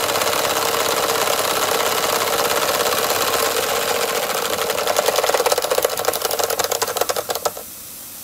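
DM-1 model steam engine running fast as it drives a small dynamo, with a quick, even chuffing and clatter. In the last few seconds the beats become distinct and separate, then stop suddenly.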